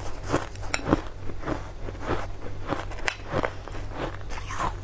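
Shaved ice crunched between the teeth, a quick run of crisp crunches two or three a second.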